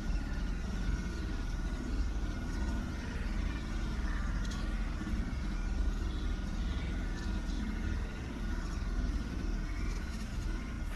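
A steady low rumble with a faint even hiss above it and no distinct events.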